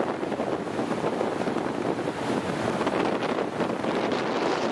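Boeing 929 Jetfoil running foilborne past, a steady rushing noise of its waterjet spray and engines, mixed with wind noise on the microphone.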